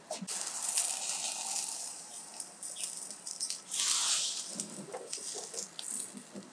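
Lula kebab skewers sizzling over glowing charcoal, with crackling from the embers. There is a louder hiss about four seconds in.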